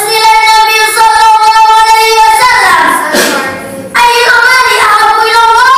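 A boy's voice singing long, drawn-out notes: the first is held about two and a half seconds, then slides down, and a second is held from about four seconds in, rising near its end.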